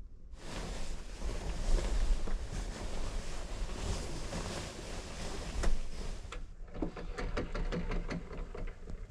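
A duvet rustling loudly as a hand handles and pushes it about close to the microphone. About six and a half seconds in, this turns into a run of quick crackling rustles.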